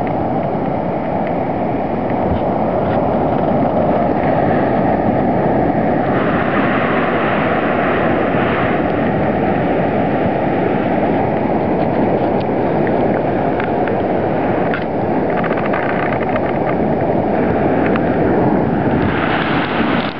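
Steady roar of ocean surf with wind noise on the microphone; a higher hiss swells three times.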